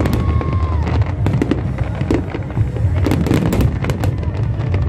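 Large fireworks display: rapid, overlapping bangs and crackles of bursting aerial shells over a dense low rumble, with a whistle tone that falls away about a second in.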